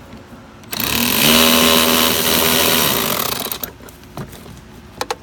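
A handheld power tool runs for about three seconds, its motor spinning up just under a second in and then running steadily, backing out a fastener on the A/C liquid line. A few light clicks follow near the end.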